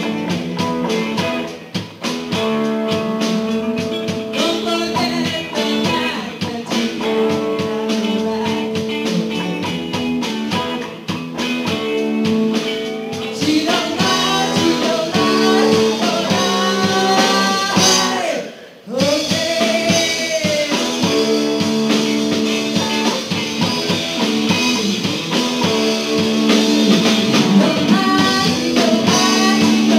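Live rock band: a singer on a microphone over electric guitars and drums. The sound drops out briefly about two-thirds of the way through.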